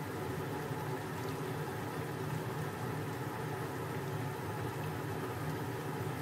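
A pot of pancit canton broth with vegetables and sausage simmering on a gas stove, a steady bubbling hiss.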